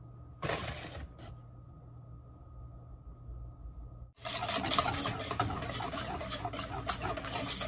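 Flour and egg white being mixed into a batter in a stainless steel mixing bowl: fast, rhythmic scraping and tapping against the metal that starts abruptly about four seconds in. Before that, one short scrape in the bowl about half a second in.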